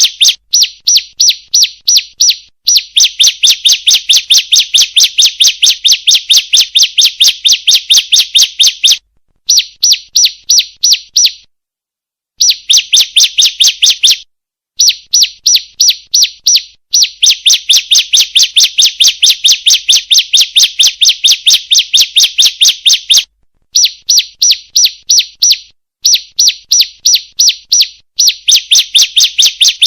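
Female ciblek (bar-winged prinia) calling: a fast, even run of sharp, high chirps, repeated in runs of a few seconds with brief pauses between them.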